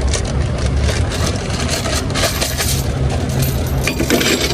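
Metal hitch chains and hardware clinking and jingling as they are handled, in irregular rattling bursts over a steady low rumble.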